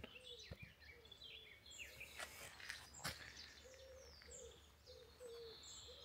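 Wild birds singing faintly, with many short high chirps and trills. From about halfway on, a low note repeats several times, and a single sharp click comes about three seconds in.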